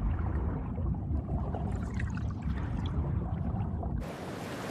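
Underwater ambience: a low rumbling wash of water with faint gurgles. About four seconds in it cuts abruptly to the steady hiss of open-sea waves and wind.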